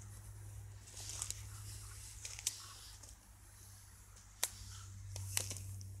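Footsteps crunching through dry leaf litter and snapping twigs, with sharp cracks about two and a half, four and a half and five and a half seconds in.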